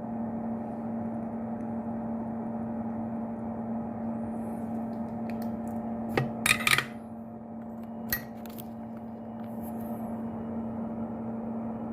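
Steady low electrical hum with a fainter higher tone above it, under light metal clicks from hand-soldering the pins of a mini HDMI male connector: a brief clatter about six and a half seconds in and a sharp click about two seconds later.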